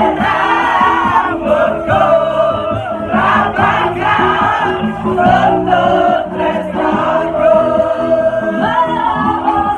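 Live band music with a woman singing into a microphone, and many voices singing along in a crowd.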